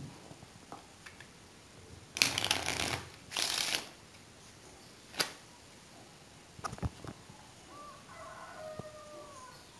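A deck of playing cards being shuffled in two quick bursts, followed by a few sharp taps and clicks of the cards being handled.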